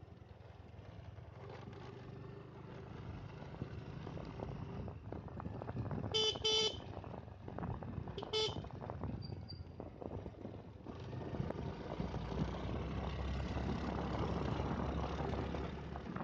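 Riding on a motorcycle, with the engine running and wind and road noise steady underneath. A horn gives two short beeps about six seconds in and one more about two seconds later. From about eleven seconds on, the engine and wind noise grow louder.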